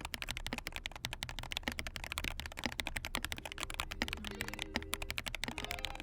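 Fast, continuous typing on a mechanical keyboard with KTT Baby Pink linear switches: a rapid, even stream of key clacks. Soft background music comes in faintly about halfway through.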